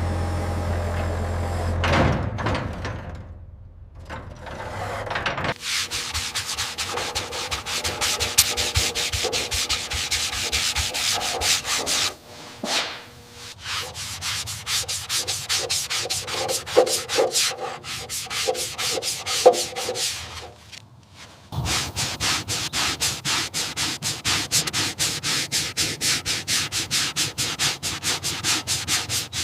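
Hand abrasive scrubbing, as in sanding, with rapid back-and-forth strokes several times a second that stop briefly twice. A steady low hum cuts off about two seconds in.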